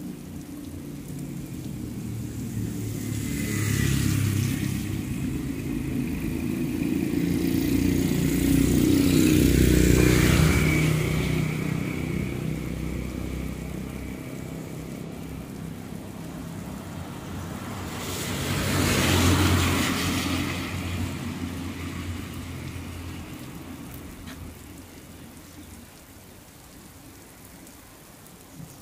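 Motor vehicles passing along a wet road: engine hum rising and fading, with tyres hissing on the wet asphalt, loudest about 4, 10 and 19 seconds in, over light rain.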